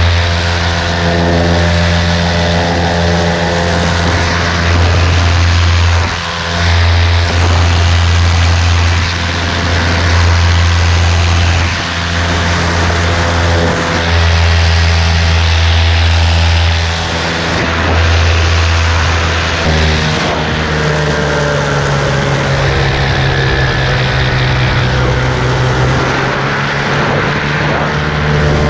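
Paramotor engine and propeller running hard through takeoff and climb-out: a loud, steady low drone that dips briefly several times, then settles onto a higher note about two-thirds of the way through.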